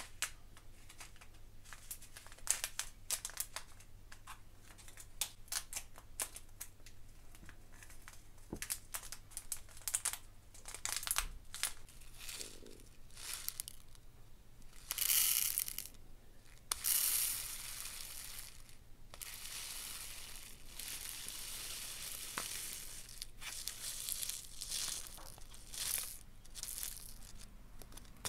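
Small plastic zip bag of round diamond-painting drills crinkling and clicking as it is handled. From about halfway through, the drills pour out of the bag into a ridged plastic sorting tray as a dense, steady rattle for several seconds, and scattered clicks follow as the last ones fall.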